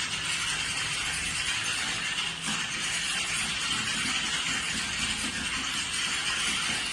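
Many computer keyboards typed on at once, a dense, steady clatter of overlapping keystrokes.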